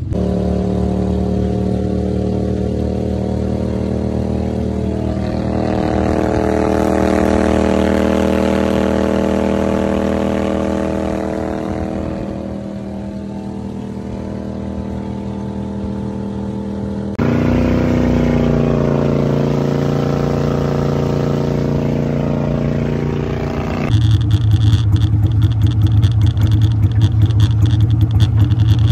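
Gator-Tail surface-drive mud motor running steadily, its note changing abruptly twice. Near the end it runs lower and louder at idle, with a fast pulsing beat.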